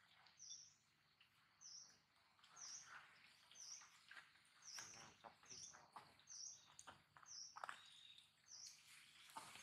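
A small bird giving a faint, high chirp over and over, about once a second, with faint rustling and scuffing in between.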